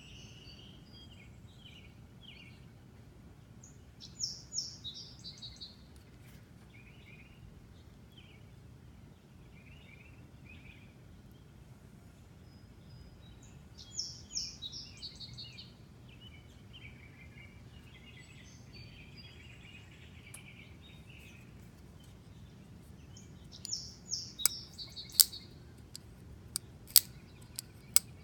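A songbird sings a short phrase of quick descending notes three times, about ten seconds apart, with scattered chirps between. In the last few seconds come several sharp clicks from a John Gray Bloodshark flipper folding knife, its blade flipped open and snapping shut.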